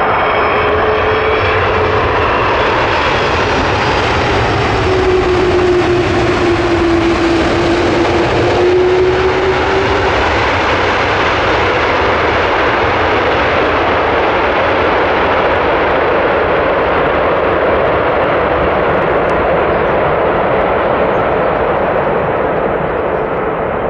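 Airbus A330 airliner's jet engines during the landing roll just after touchdown: a loud, steady rushing noise that swells for several seconds a few seconds in, as typical of reverse thrust. Over it an engine whine falls slowly in pitch over the first ten seconds.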